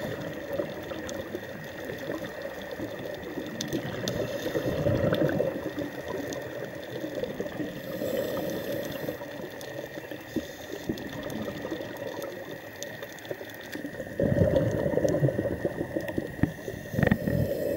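Underwater sound of a diver's scuba breathing: bubbles rushing and burbling in bursts every few seconds, loudest about 14 to 15 seconds in, over a steady crackle of tiny clicks.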